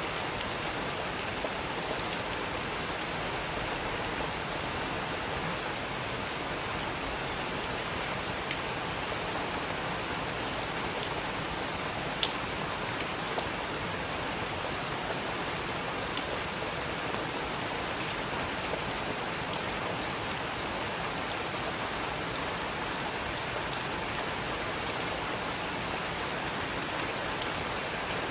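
Steady rain with a wood fire crackling over it in scattered sharp pops, the loudest about twelve seconds in.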